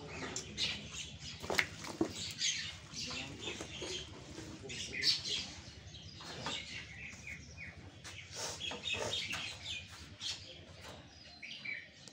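Small birds chirping over and over in short, high calls, with a few brief knocks.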